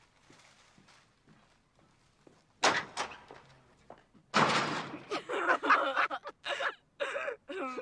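A door slamming shut about two and a half seconds in, a sharp double bang. From about four seconds in, a man's loud, drawn-out vocal cries, broken into short bursts.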